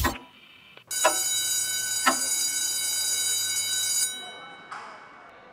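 An electric bell rings steadily for about three seconds, starting about a second in and cutting off suddenly. Under it a clock ticks about once a second.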